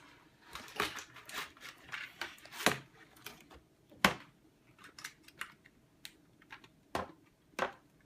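Cardboard and plastic packaging being worked as a toy playset is pulled free of its box: irregular crinkles, rustles and sharp clicks. The toy is tightly strapped down in the box. The loudest snap comes about four seconds in, and two more clicks follow near the end.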